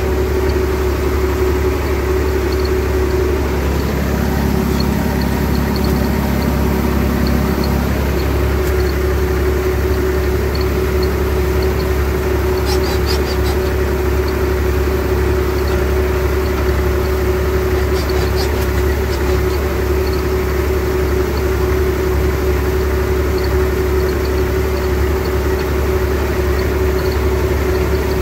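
IMT 539 tractor's three-cylinder diesel engine running steadily while the tractor drives across a field, heard from inside the cab.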